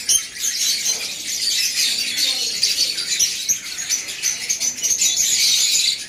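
Many caged lovebirds chattering at once, a dense wash of overlapping high chirps that never stops.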